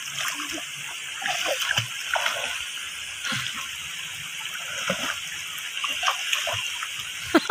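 Shallow stream water flowing steadily, with small, irregular splashes as a child crawls and paddles through it.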